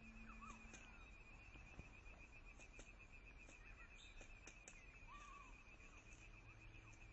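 Faint outdoor ambience: a steady, rapidly pulsing insect trill, with several short bird chirps a few times and a few soft sharp clicks scattered through.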